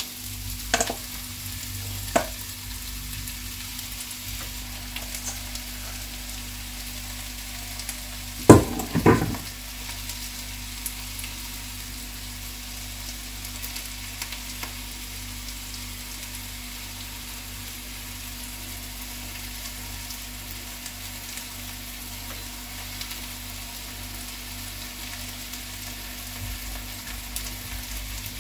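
Charlotte batter and sliced apples sizzling steadily in a hot frying pan, with a few sharp knocks of a wire whisk against the mixing bowl, the loudest about eight and a half seconds in.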